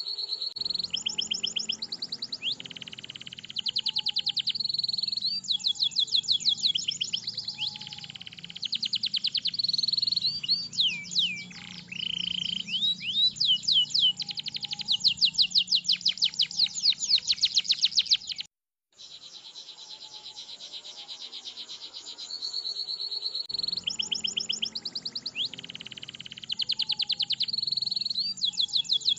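Domestic canary in full song: long rolling trills of rapid repeated notes and chirps, with a few falling whistles. The song cuts out for a moment past the middle, stays quieter for a few seconds, then the rapid trills resume.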